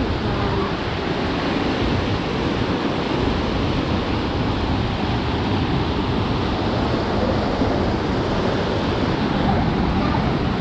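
Steady rush of running water, an even, continuous noise with no breaks or surges.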